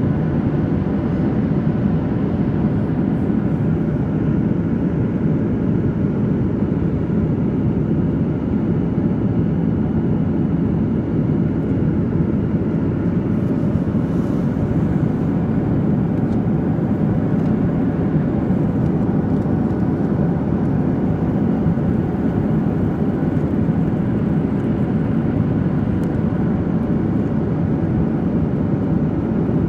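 Steady cabin drone of a Boeing 737-800 in flight: an even, low rush of airflow and engine noise with a few faint steady tones over it.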